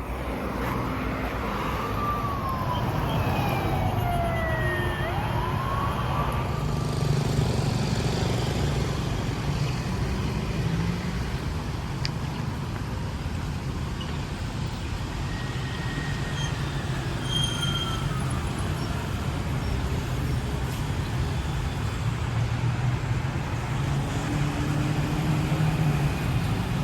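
Street traffic running steadily with a low engine rumble. A few sliding whistle-like tones, falling and then rising, come a few seconds in and again about midway.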